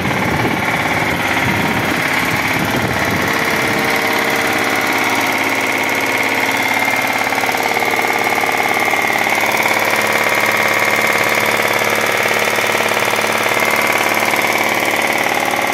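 Mazda Xedos 9 (Millenia) V6 engine idling with a loud, rhythmic knock from inside the engine, described as a heart-rending knock: the sign of a serious internal engine fault.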